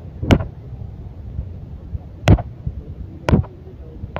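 Handling noise on a handheld phone carried while walking: three sharp knocks, about a second or two apart, over a low steady rumble.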